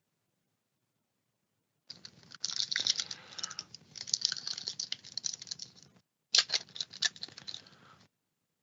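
Trading cards being handled and flipped by hand: quick papery clicks and card stock sliding against card stock. It starts about two seconds in and comes in two spells with a brief pause between them.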